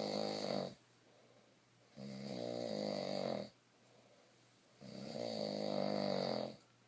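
Snoring: long pitched snores, each about a second and a half, coming about every three seconds with quiet breaths between.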